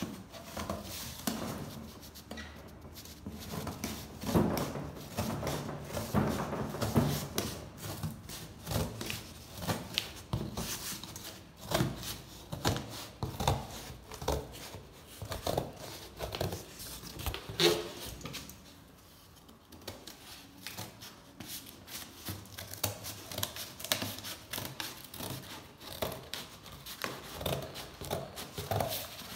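Large scissors cutting through corrugated cardboard: repeated, irregular snips and crunches as the blades close through the board, with a short lull a little past the middle.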